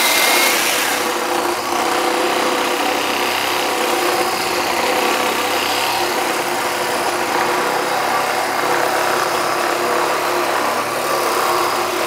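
Bosch GSA 10.8 V cordless reciprocating saw with a long, coarse blade, running steadily as it saws through a squared wooden timber.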